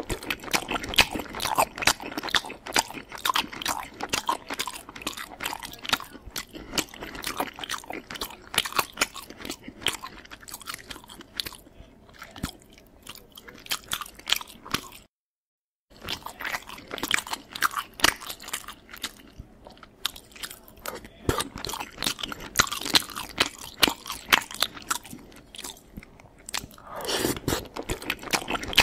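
A person chewing and biting food close to the microphone: dense, irregular wet smacks and crunches. The sound cuts out completely for under a second about halfway through.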